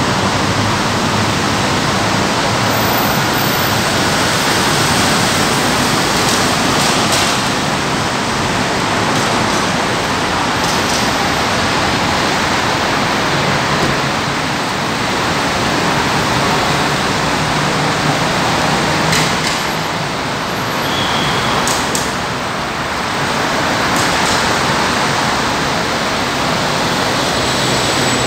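Steady, even rushing noise of traffic and general ambience in a covered roadway, with a few faint clicks in the second half.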